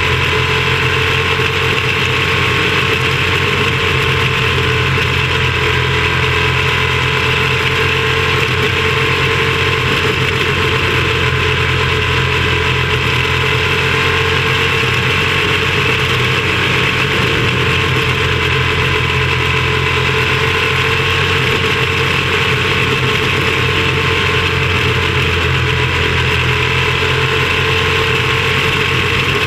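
Quarter midget race car's small engine running steadily at racing speed through the laps, heard close up from on board the car; its pitch wavers only slightly, with no big revs or drops.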